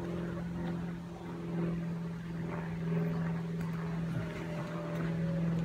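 Engine droning steadily at one low, unchanging pitch.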